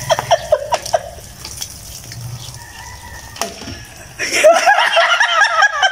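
Charcoal-blackened water is tipped from a bowl over a man's head and splashes down in quick spatters over the first second, then drips more quietly. Laughing breaks out a little after four seconds in.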